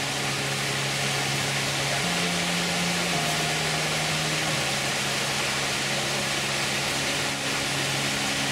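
A small mountain waterfall: water rushing steadily over rocks into a stream. Soft background music of slow, held low notes runs over it, changing pitch every second or two.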